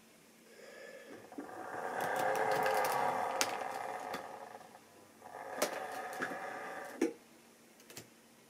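Electric motor of a model railway diesel locomotive whirring as it runs along the track, the sound swelling and fading as it passes, with a few clicks of the wheels on the rails. A second, shorter run follows and ends in a sharp click about seven seconds in.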